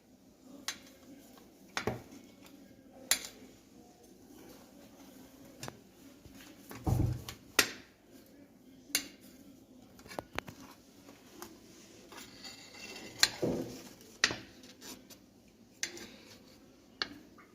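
A knife clicking and scraping against the dish while the edges of a chilled layer cake are trimmed off: scattered sharp clicks every second or so, with a duller thump about seven seconds in.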